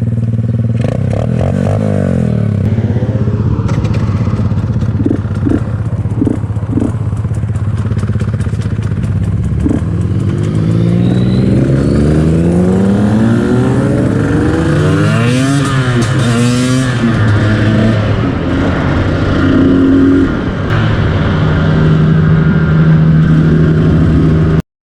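Husqvarna TE150i's single-cylinder two-stroke engine revving while the bike is ridden. Its pitch climbs again and again through the gears and swings rapidly up and down midway, then holds high and steady near the end.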